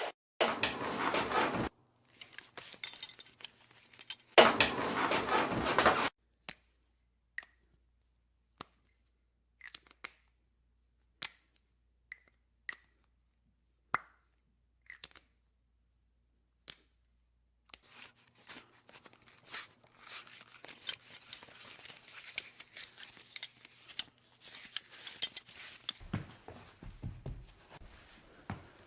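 Drill driving a wood screw through the floorboards into the joist beneath to stop the squeak, in two short loud runs. Then come scattered single clicks and short creaks, and near the end a longer stretch of faint, dense crackling.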